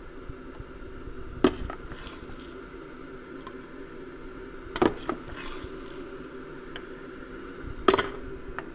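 Metal spoon clinking against a plastic measuring cup while scooping dry rice: four sharp clicks, two of them close together about halfway through, over a steady low hum.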